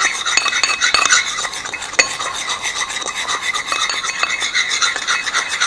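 Metal spoon stirring a wet red slime mixture in a ceramic plate, a steady stream of quick wet scrapes and small clinks against the plate, while the slime base is mixed before the borax activator goes in.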